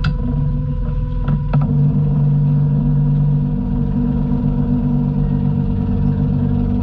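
Lobster boat's engine running steadily, a low hum with a steady whine above it. A few sharp knocks sound in the first second and a half.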